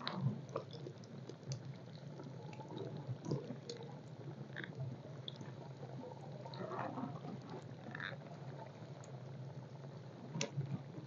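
Battered pakoras frying in hot oil in a small wok over a wood fire, bubbling and sizzling faintly, with scattered small crackles and pops.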